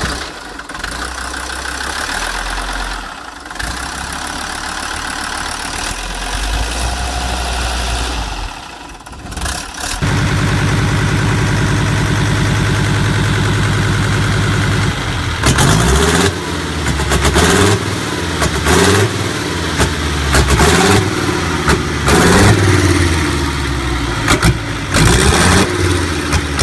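Five-cylinder diesel engine running. At first it idles steadily; then a louder, closer take of it running follows, and from a bit past halfway it is revved in a series of quick throttle blips, about one a second, the pitch rising and falling with each.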